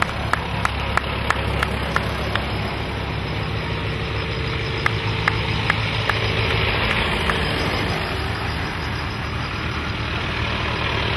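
Vintage tractor engines running as the tractors drive past one after another, a steady low engine sound. Sharp regular clicks, about three a second, come through in the first couple of seconds and again around the middle.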